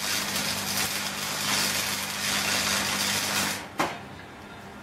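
Electric arc welding on a steel car-seat spring frame: a steady, dense hiss over a low hum, which stops shortly before the end, followed by a short click.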